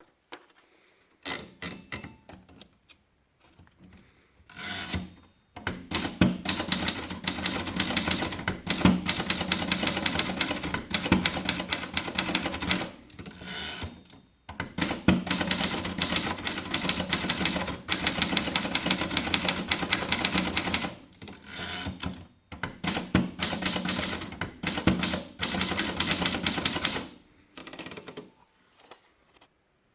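Remington Monarch 2 typewriter being typed on: a few single keystrokes, then three long runs of rapid key strikes clattering against the platen, broken by short pauses.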